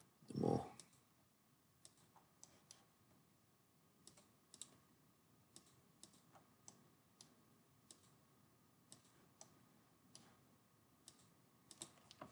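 Faint, scattered computer mouse clicks, roughly one every half second to second, with one brief louder low sound about half a second in.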